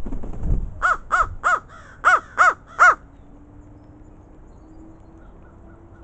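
Crow cawing six times in quick succession, in two runs of three, the second run louder.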